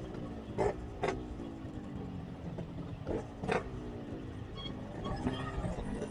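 Motorcycle engine running with road noise, its pitch slowly falling as it eases off, with four short knocks: two near the start and two about halfway.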